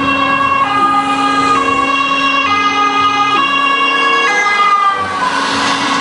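Ambulance two-tone siren alternating between a high and a low note about every second. Near the end the tones slide lower as the vehicle passes and road noise rises.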